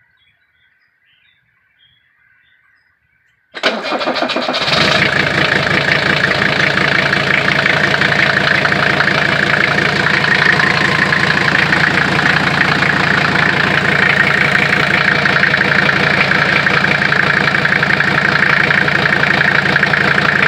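Mercedes-Benz W123 300D's OM617 five-cylinder turbodiesel starting about three and a half seconds in: it cranks briefly, catches within about a second, then idles steadily.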